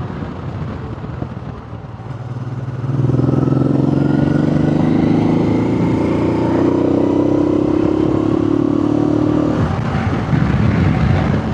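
Motorcycle engine under acceleration, heard through a microphone inside the rider's helmet. After a few seconds its note comes in strongly and climbs slowly for several seconds, then drops away about two seconds before the end, leaving rushing air noise.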